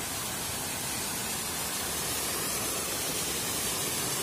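Small waterfall cascading over rocks: a steady, unbroken rush of water.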